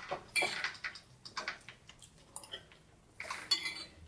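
Metal cutlery clinking and scraping lightly: scattered, irregular small clinks and scrapes with short quiet gaps between them.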